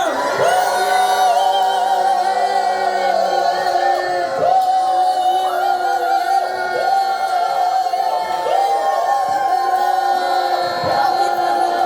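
A large group of voices singing together in unison. They hold long high notes, each scooping up into the note and starting again about every two seconds.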